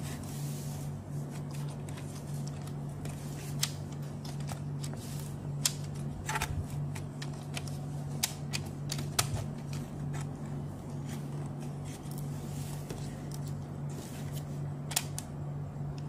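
Scattered sharp plastic clicks and knocks from handling the underside of an HP EliteBook 8470p laptop and working its battery release latch, a few louder than the rest, over a steady low hum.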